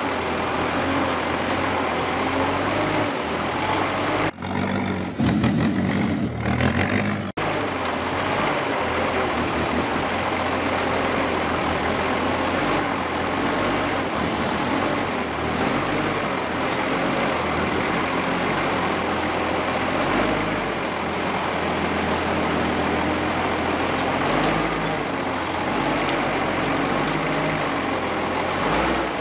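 REO 6x6 army truck's engine idling steadily, heard from beneath the chassis by the rear axle. About four seconds in there are a few seconds of louder, rougher noise before the steady idle carries on.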